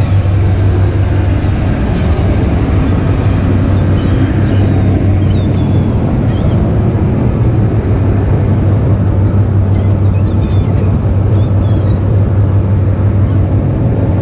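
Boat engine running steadily with a deep, even drone while towing a shrimp trawl net, with gulls crying overhead a few times.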